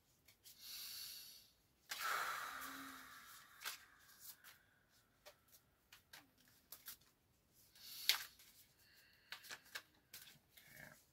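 Tarot deck being shuffled by hand: soft card-on-card rustles and small clicks, loudest about two seconds in, with a sharp snap around eight seconds.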